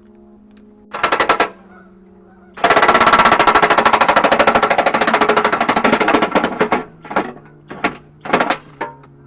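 Pneumatic tool hammering in rapid bursts: a short burst about a second in, then a long burst of fast, even strokes lasting about four seconds, then several short bursts near the end, over a steady low hum.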